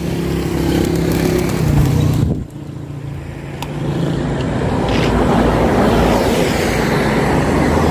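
Motor vehicle engine running with a steady hum, dropping away suddenly about two and a half seconds in, followed by a building rush of road or traffic noise with an engine underneath.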